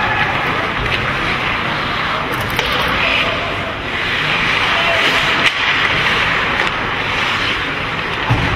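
Ice hockey play: skates scraping and carving on the ice in a steady hiss, with a few short sharp knocks, one of them about halfway through.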